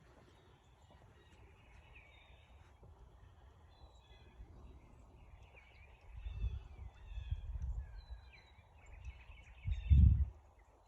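Several small birds chirping and calling. Low rumbles come in around the middle, and a louder one near the end.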